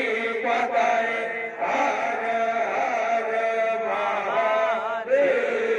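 A man leads devotional chanting through a loudspeaker system, singing long held notes that waver up and down, over a steady held tone.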